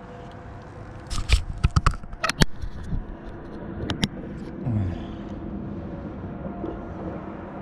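Handling noise right at the microphone: a quick run of sharp knocks and scrapes from about one to four seconds in, as a hand works the camera and its mount on a kayak.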